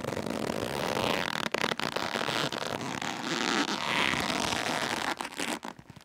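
Rope rubbing and scraping, a rough steady friction noise with small crackles and clicks that drops away near the end.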